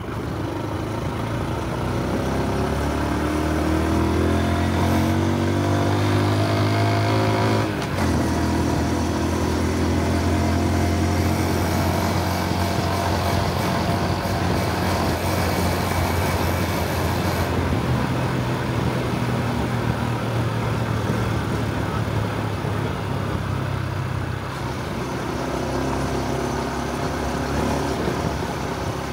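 Honda Super Cub C125's single-cylinder four-stroke engine and exhaust under way. The revs climb over the first several seconds and drop with a gear change about eight seconds in. The engine then runs at a steady cruise, easing off a few seconds before the end.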